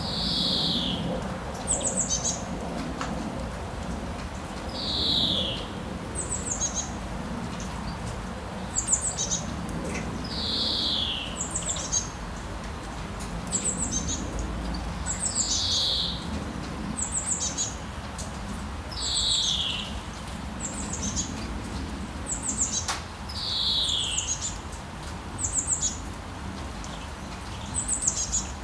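Birds calling over and over: a falling whistled note every four or five seconds, with short high chirps in between, over a steady hiss of rain.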